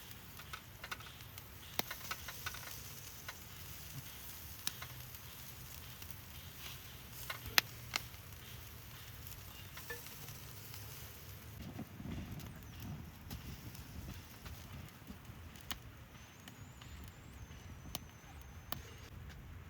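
Wood campfire crackling, with irregular sharp pops and snaps over a steady low background.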